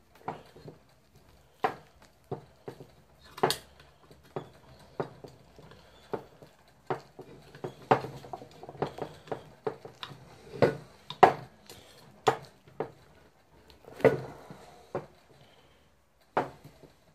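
A small screwdriver prying and scraping at polyurethane set in a steel engine mount bracket, giving irregular sharp clicks and scrapes of metal on metal and hard plastic, about one or two a second. The poured polyurethane has cured unevenly, hard in places and soft in others, and is being dug out as a failed fill.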